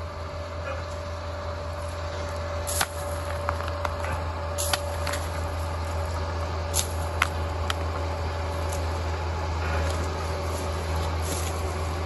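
Liebherr PR 746 crawler dozer running steadily at a distance, a low engine drone with a steady whine above it. Scattered sharp clicks and knocks sound through it.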